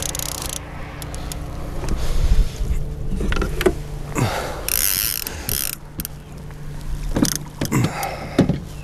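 A fishing reel being cranked, its gears clicking irregularly, over the steady low hum of the boat's outboard motor running at trolling speed.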